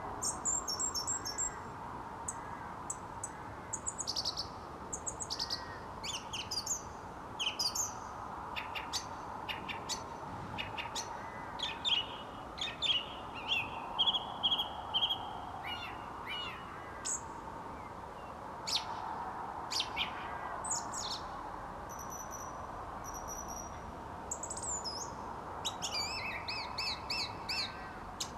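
Song thrush singing: loud, varied short phrases, several notes repeated in quick series, with short pauses between phrases, over a steady faint background noise.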